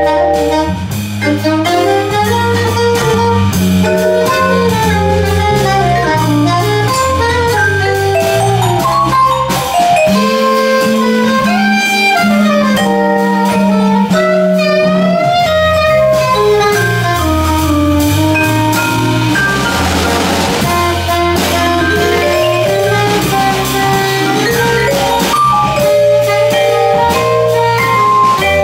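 Live small-group jazz in waltz time: a soprano saxophone plays the melody, with vibrato on held notes, over vibraphone, bass and a drum kit.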